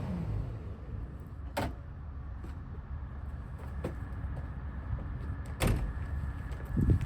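Komatsu PC240LC-11 excavator's six-cylinder diesel running with a steady low rumble, its level settling after a louder stretch. Sharp metallic clunks come twice, a faint steady high whine starts after the second one, and a heavier thump comes near the end.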